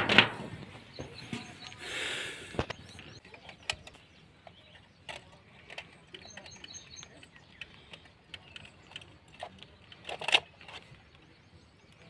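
Rustling and scattered clicks of electrical cables and bare copper wire ends being handled and pushed into a plug socket box, close to the microphone. A louder knock comes at the start and another just after ten seconds.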